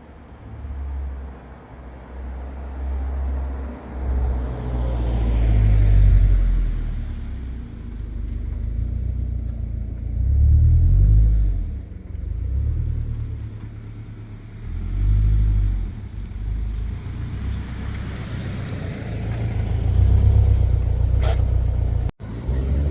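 A 2022 Toyota GR86's 2.4-litre flat-four through an A'PEXi N1 Evo Extreme single-exit catback and JDL header: a deep exhaust rumble that surges and falls back several times as the car is driven and accelerated. The sound cuts out briefly near the end.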